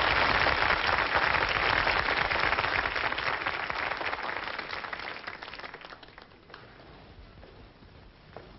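Audience applause, a dense patter of many hands clapping that fades out over about six seconds, leaving faint room noise.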